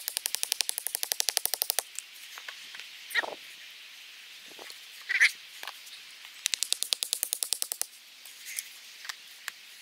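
Two fast, dry rattles of evenly spaced clicks, about fourteen a second, each lasting about a second and a half, with a few short calls in between.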